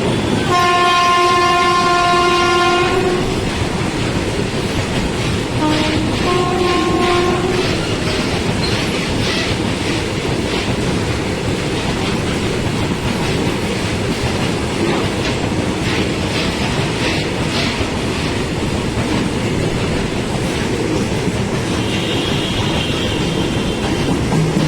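Indian Railways WAG7 electric locomotive sounding its horn at speed: one long blast of about three seconds, then a shorter two-note blast a few seconds later. After that comes the steady rhythmic clatter of the freight train's wheels over the rail joints as it passes.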